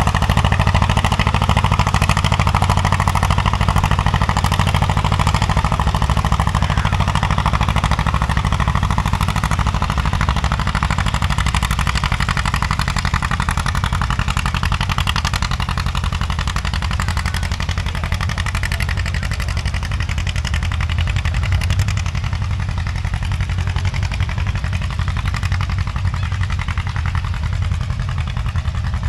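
Farm tractor engine working hard under load as it drags a weight-transfer pulling sled down the track: a steady, deep engine drone with rapid firing pulses, gradually getting fainter.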